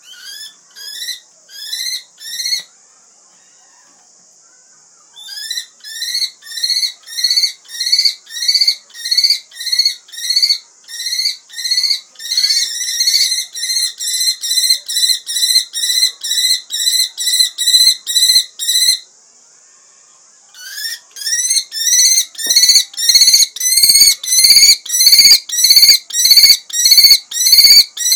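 A kestrel calling: loud, shrill notes that rise and fall, repeated about two a second in long runs with short pauses, coming faster near the end.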